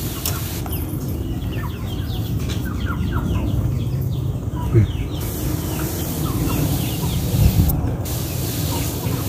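Pesticide spray wand hissing as it mists the plants, the hiss dropping out for a moment near the end, over a steady low rumble. Short bird calls chirp through the first half.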